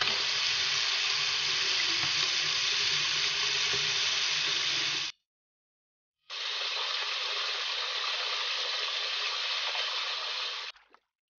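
Water running from a working miniature faucet into a small steel pot in two runs of about five and four seconds, each turned on and cut off abruptly.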